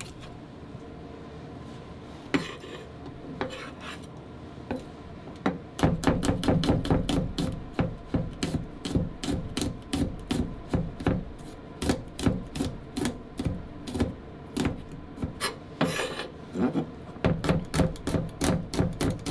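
Kitchen knife chopping an onion on a wooden cutting board: a few scattered knocks, then from about six seconds in a quick, even run of knife strokes hitting the board, about three to four a second.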